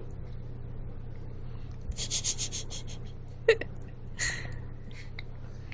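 A baby gnawing and smacking on an animal cracker. There is a short vocal squeak about three and a half seconds in and a breathy puff soon after, over a steady low hum.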